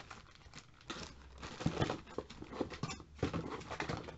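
Packaging being handled: a box and its contents rustling and crinkling with many small taps and clicks, getting louder from about a second in.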